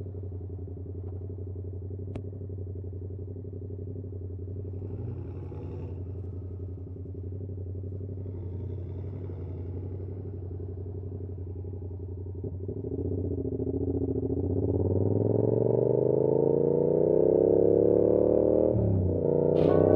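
Yamaha R7's CP2 parallel-twin engine through an SC-Project CR-T exhaust, running steadily at first. From about thirteen seconds in it accelerates, its pitch and loudness climbing. Near the end there is a brief drop in pitch before it climbs again.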